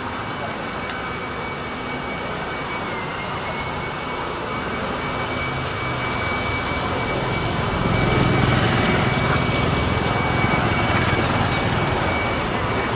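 Street traffic: a small car drives past close by, then motorbikes pass on the wet road, the engine and tyre noise swelling about two-thirds of the way in.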